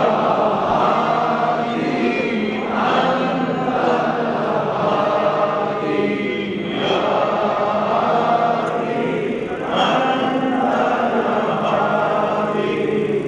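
A large crowd of men chanting together in unison, in repeated phrases a few seconds long, typical of a devotional chant at a Sufi gathering.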